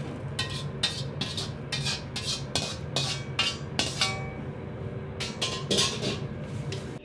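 Metal ladle clanking and scraping against a steel wok as jjamppong is scraped out into a stainless steel hotel pan: a quick, uneven run of about a dozen ringing metallic clanks, over a steady kitchen hum.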